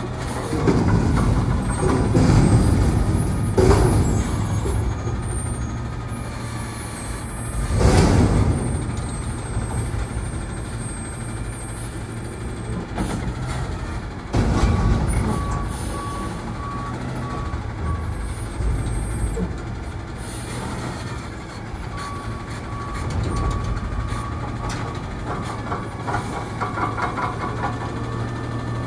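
Garbage truck's diesel engine running steadily, with a reversing beeper sounding on and off and several loud hissing, noisy bursts, the first few seconds in and again around the middle.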